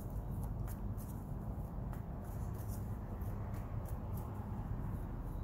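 Tarot cards being handled and shuffled in the hands, faint soft clicks every fraction of a second, over a steady low background rumble.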